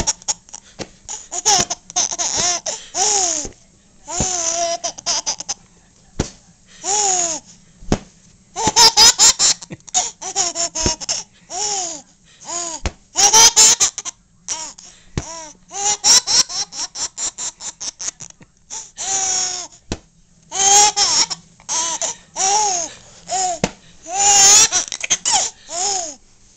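A baby laughing in repeated fits, about twenty separate bursts of high, squealing laughs. Many fall in pitch, and some break into quick strings of rapid laughs, with short breaths between them.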